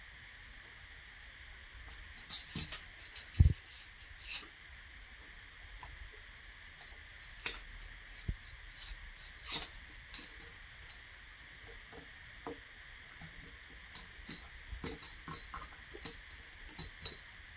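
Scattered light clicks, taps and scrapes of a brass cleaning rod and bore brush being handled and run through a pistol barrel, with one louder knock a few seconds in.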